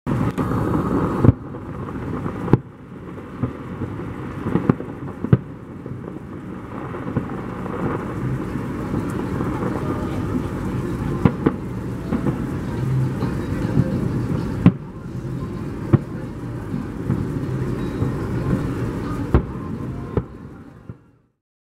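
Fireworks display: shells bursting with sharp bangs every few seconds over a continuous rumble of echoing booms. The sound cuts off suddenly near the end.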